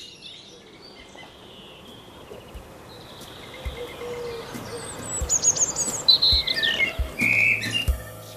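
Several songbirds singing and chirping over a steady outdoor hiss. Brighter, louder whistled calls come in from about five seconds in, with a few soft low thumps.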